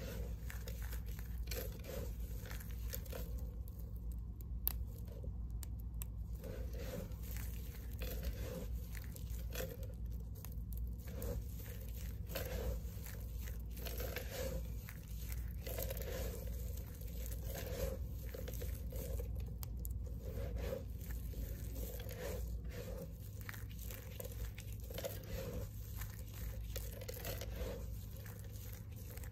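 Hands squeezing, crushing and letting fall handfuls of small cut pieces of green and white bar soap: a dense run of small crackles and crunches as the soap pieces rub and break against each other, swelling with each squeeze about once a second.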